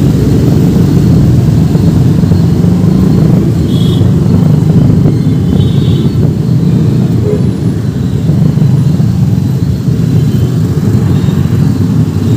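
Riding a two-wheeler through dense city traffic: a loud, steady rumble of engines and road noise. Two short high-pitched sounds come about four and six seconds in.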